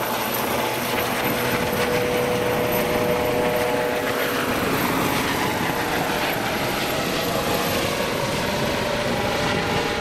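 Eurocopter EC135 air ambulance helicopter climbing away after take-off: the steady chop of its main rotor mixed with the whine of its twin turbines. A whine heard in the first half fades about halfway through as the helicopter pulls away.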